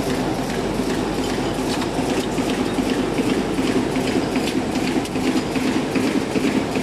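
Roll-fed plastic T-shirt bag making machine with a rotary hob running. A steady hum sits under a rapid, regular clatter.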